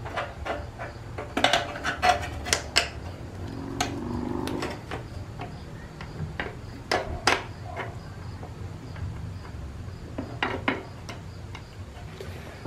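Light metallic clicks and clinks, scattered and irregular, as the front band is worked into place around the drum inside a 47RE automatic transmission case.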